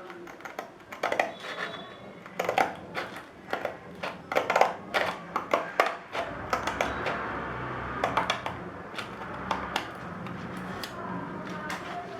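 Irregular sharp taps, clicks and knocks of hand work on a plywood sanding block as sandpaper is fitted to it. From about six seconds in, a steady low hum runs under fewer, scattered clicks.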